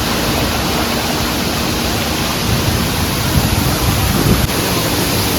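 Waterfall pouring onto rock, a steady rushing close to the microphone, a little louder and rougher for a couple of seconds in the middle.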